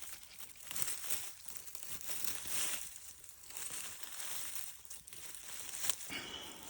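Irregular rustling and crinkling noises, coming in uneven bursts.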